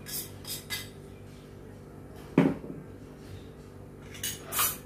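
A fork clinking against bowls as chopped green chilli is added to a bowl of eggs: a few light clinks, one louder knock about halfway through, then two more clinks near the end.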